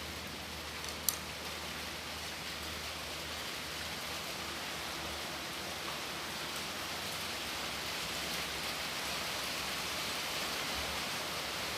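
Steady rain falling, an even hiss that grows slightly louder toward the end, with a single sharp click about a second in.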